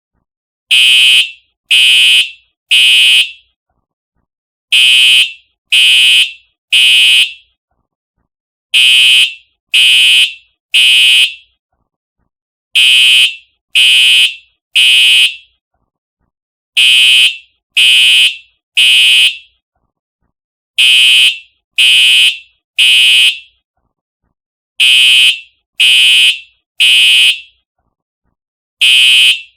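Simplex TrueAlert fire alarm horn sounding the temporal-3 evacuation pattern: three short, loud blasts about a second apart, then a pause, repeating every four seconds.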